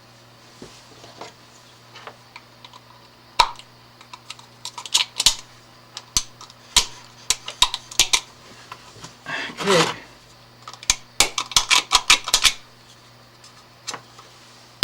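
Sharp clicks, taps and small rattles of hands working on an electrical box and its fittings, with a single louder snap about three and a half seconds in, typical of breaking out a knockout hole in the box.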